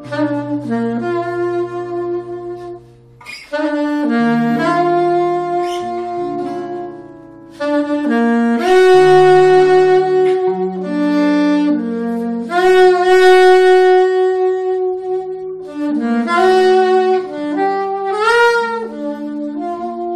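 Soprano saxophone and amplified guitar playing as a duo: long held saxophone notes over sustained lower guitar notes. The saxophone grows louder and brighter through the middle and slides up to a higher note near the end.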